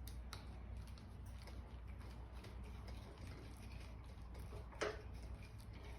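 Faint ticks and light clicks of a small Allen wrench and metal handlebar bracket being worked loose, with one sharper click about five seconds in, over a low steady hum.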